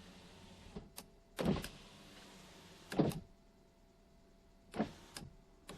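Power window on a 2005 Ram 2500's driver's door being run with a newly fitted switch: switch clicks and thuds as the window motor starts and stops, with the motor running briefly between, the loudest thuds about a second and a half in and about three seconds in. The new switch works smoothly.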